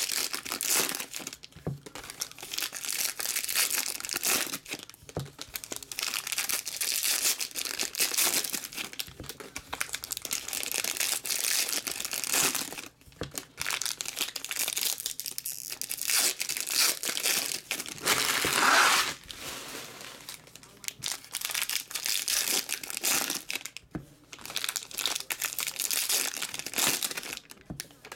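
Foil wrappers of 2018-19 Donruss basketball trading card packs crinkling and tearing as the packs are ripped open by hand one after another, with short pauses between packs and a louder rip about two-thirds of the way through.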